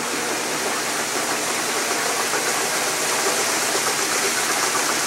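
Magic Chef 2.1 cu ft portable washer in its spin cycle, the drum speeding up: a steady rushing noise of motor and spinning tub, still heavy with water, growing slightly louder in the first couple of seconds.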